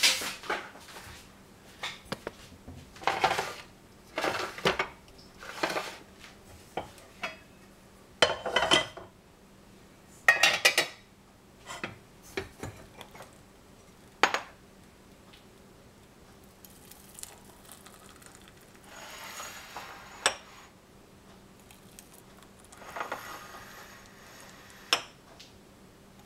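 Kitchen clatter: glass jars, a steel saucepan and a utensil clinking and scraping in a run of short, sharp knocks. Later come two longer, softer stretches as thick strawberry coulis is poured from the saucepan into glass jars, each ending in a clink.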